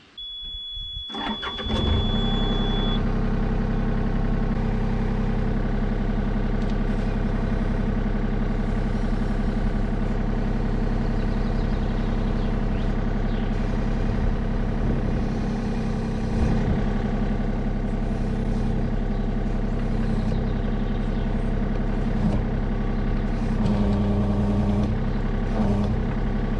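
Excavator diesel engine cranking and starting about a second and a half in, then running steadily, with a steady high beep over the first few seconds. The machine is being run to put hydraulic pressure on a freshly repaired hose coupling.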